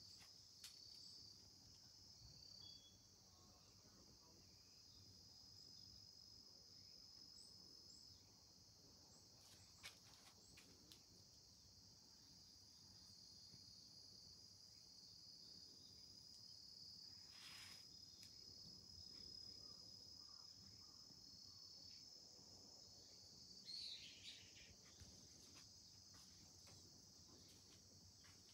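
Faint, steady high-pitched insect trilling, with a few short chirps near the end.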